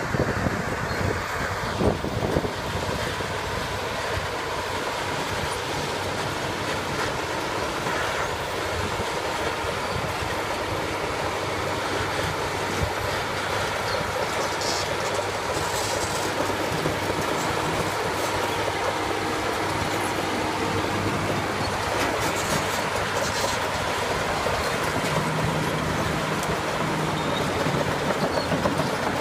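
A Cat crawler dozer pushing a logging truck: heavy diesel engines running under load, with a steady mechanical clatter.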